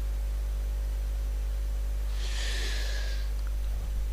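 A Quran reciter's audible in-breath about two seconds in, drawn before the next phrase, over a steady low electrical hum.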